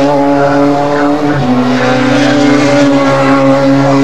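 Race car engine running hard at a steady note. Its pitch drops in one step about a second and a half in, then holds steady again.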